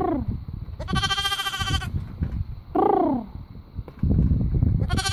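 Young lambs bleating: four calls, short ones that fall in pitch at the start and about three seconds in, a longer, steadier bleat about a second in, and another starting near the end. A low rustling runs underneath.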